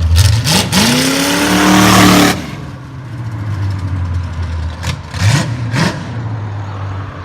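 Chevy 350 small-block V8 with open headers revving. It rises from idle into one long rev of about two seconds that cuts off sharply, idles, then gets two quick throttle blips about five seconds in.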